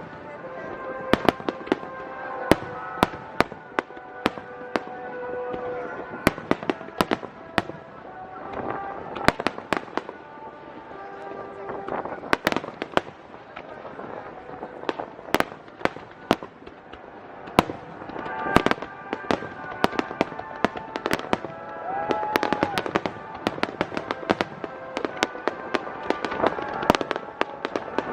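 Aerial fireworks shells bursting one after another at irregular intervals: many sharp bangs and cracks, with music playing underneath.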